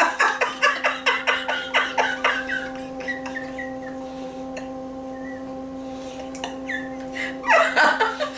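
Two women laughing helplessly: rapid pulsing laughter for the first few seconds, fading to quieter scattered laughs, then breaking out loudly again near the end. A steady low hum runs underneath.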